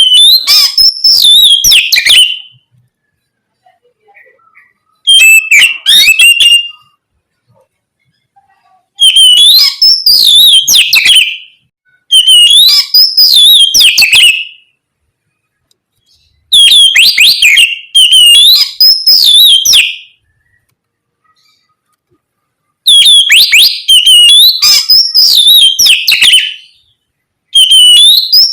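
Oriental magpie-robin (kacer) singing loudly in rapid, whistled phrases that sweep up and down in pitch. The song comes in about seven bouts of two to three seconds each, with short silent pauses between them.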